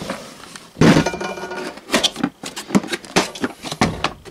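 Plastic toolbox being handled and opened: a loud knock about a second in, then a run of clicks and clinks from the lid, latches and the metal hand tools inside.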